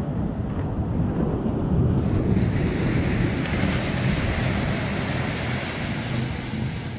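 Small sea waves breaking and washing up a sandy beach, the surf hiss growing about two seconds in, with wind buffeting the microphone.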